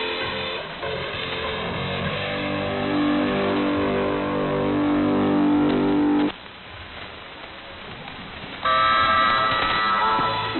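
Shortwave AM pirate radio broadcast heard through a receiver, its audio cut off above the high tones. A chord of steady tones is held for a few seconds, then the programme drops suddenly to a low hiss for about two seconds. Higher tones come back near the end.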